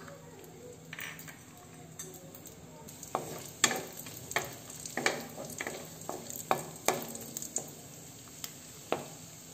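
Cashew nuts frying in ghee in a metal kadai, with a faint sizzle. From about three seconds in, a wooden spatula stirs them with repeated, irregular scrapes and knocks against the pan.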